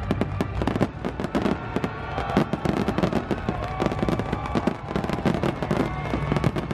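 Aerial fireworks show in a rapid barrage: shells bursting and crackling, many bangs a second without a break.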